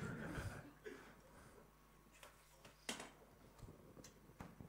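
Near silence: room tone in a hall, with a faint voice at the start and a few short, sharp clicks and knocks later on.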